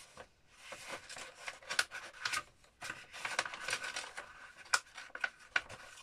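Paper pages of a handmade book rustling and crackling as they are bent back and folded by hand, in an irregular run of crisp rustles.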